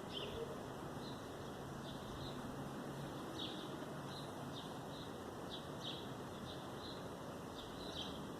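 Small birds chirping repeatedly in short notes over a faint steady background hiss.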